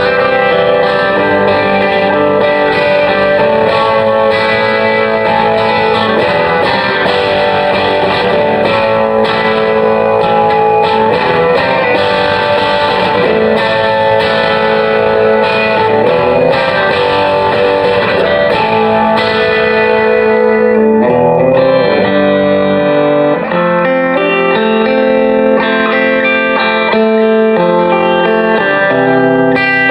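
Jackson Soloist electric guitar played through a Mesa Boogie Mark IIC+ 100-watt tube amplifier on a clean tone, ringing chords and notes, heard through a cell phone's microphone. The playing changes to a different, thinner-sounding passage about two-thirds of the way in.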